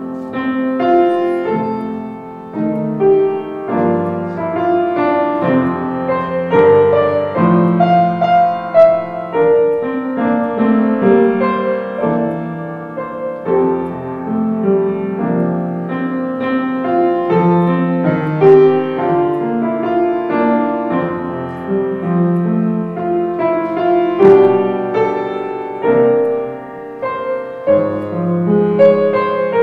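Upright piano played solo: a melody over sustained chords, with notes and chords changing every second or less.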